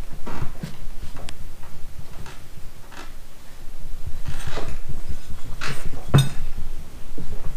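A snow blower wheel being worked off its axle and handled on a workbench: scattered knocks, scrapes and rubbing of the rubber tire and steel rim, with a sharp clunk about six seconds in.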